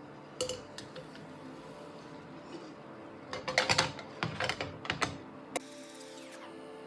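Kitchen utensils clicking and clattering, a couple of single clicks and then a run of quick knocks in the middle, over quiet background music; a short falling swoosh near the end.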